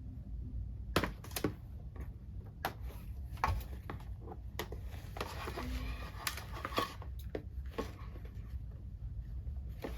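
Irregular clicks, taps and rustles of a box and its packaging being handled as hand puppets are taken out of it.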